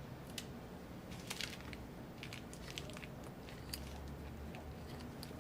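Faint, scattered small clicks and crackles from laptop parts being handled at a workbench, over a steady low hum.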